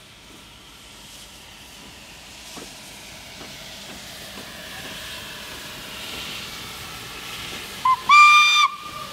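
Steam locomotive pulling away, its steam hissing louder as it draws near, then near the end a short toot followed by a loud steam-whistle blast of about half a second.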